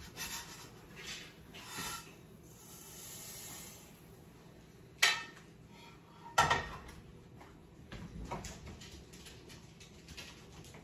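Cookware handled at the stove as toasted rice goes from a frying pan into a pot of broth: two sharp clanks about a second and a half apart, with light scraping and small clicks of a utensil in the pot.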